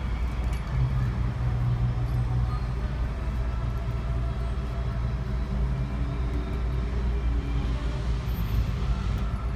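Steady low rumble of a motor vehicle engine running.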